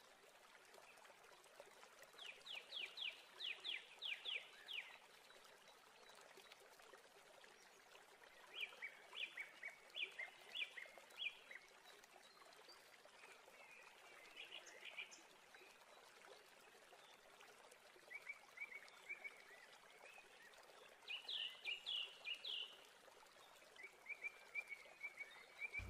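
Animal calls: runs of quick high chirps, about three a second, in about six bouts spaced a few seconds apart, over a faint steady hiss.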